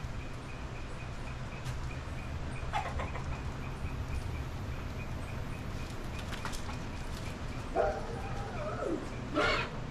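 Chickens calling around a backyard coop. There is a short call about three seconds in, then a drawn-out call near the end that falls in pitch as it finishes, followed at once by a louder short squawk, over a steady low rumble.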